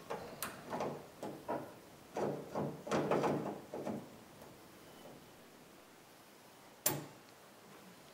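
Vise grips (locking pliers) working a grille stud whose nut has rusted on: a few clicks and knocks, a scraping, rattling stretch about two to four seconds in, then a sharp snap near the end as the pliers lock shut on the stud.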